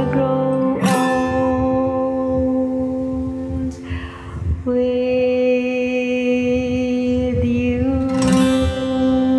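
Closing bars of a slow acoustic guitar ballad: a strummed chord about a second in and another near the end, with long held notes in between that break off briefly around the middle.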